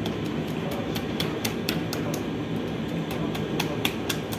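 Steady low rumbling hum of bakery machinery, with a scattering of sharp clicks and knocks, most of them in the middle stretch.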